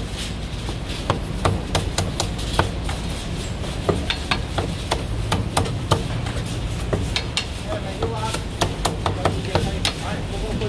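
Chinese cleaver chopping a cooked chicken through the bone on a thick round wooden chopping block: sharp, irregular chops about two a second.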